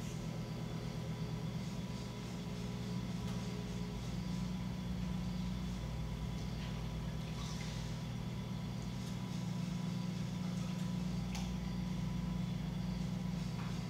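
Electric potter's wheel running with a steady low motor hum, with a few faint taps and scrapes of clay work on top.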